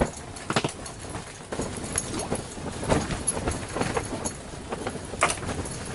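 Irregular knocks, clicks and rustling from handling close to the microphone, with a sharper knock about five seconds in.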